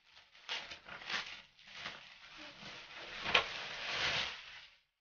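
Clear plastic bag crinkling and rustling as a jacket is pulled out of it: a few short rustles, then a longer stretch of crinkling from about two and a half seconds in, with one sharp crackle in the middle of it.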